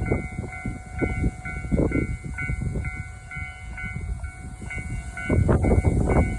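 Japanese level-crossing alarm ringing its two-tone 'kan kan', high and low tones alternating at about two a second. About five seconds in, a loud rumble starts as the 789 series limited express train arrives at speed.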